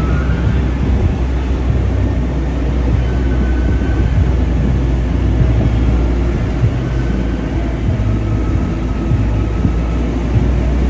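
Steady low rumble of a moving road vehicle: engine and road noise.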